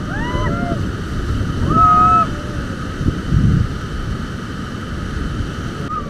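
Whitewater rapids rushing, with wind buffeting the microphone. Over it come several short high-pitched whoops and shouts from the rafters, and one longer held cry about two seconds in.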